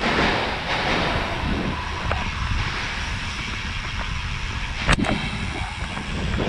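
Wind buffeting the microphone of a camera on a moving road bike, with the tyres rolling underneath, and a single sharp knock about five seconds in.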